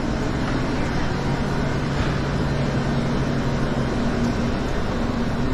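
Steady indoor background noise of a large cafeteria: even rushing ventilation with a low hum from refrigerated drink coolers.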